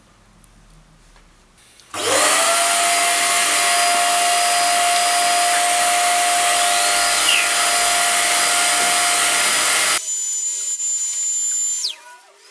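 An electric blower motor starts about two seconds in, its whine rising briefly as it spins up, then runs steadily with a loud rush of air. Around ten seconds in the sound changes abruptly and turns thinner, and near the end the motor winds down with a falling whine.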